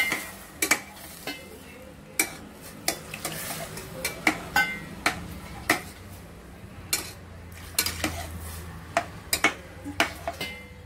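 Steel spoon stirring vegetables in water in a stainless steel pot, clinking against the pot's sides and bottom one or two times a second at irregular intervals.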